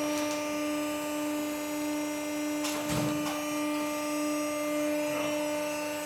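Steady electrical hum with several unchanging tones from the pet pack baler's electric motor running, with a short knock about halfway through.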